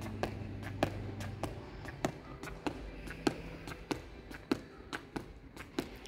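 Footfalls of a runner doing the A-skip drill on an indoor sports-hall floor: quick, light skipping steps, about three a second in an even rhythm.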